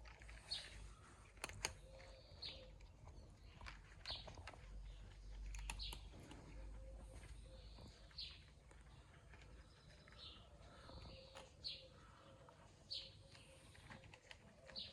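Faint chirping of small birds: short high chirps repeating every second or so, with a few soft clicks among them.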